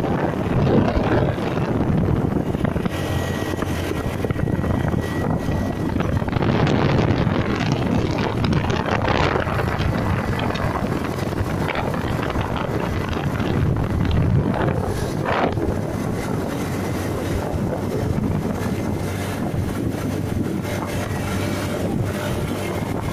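Wind buffeting the microphone over a motorcycle engine and tyre noise while riding steadily along a road.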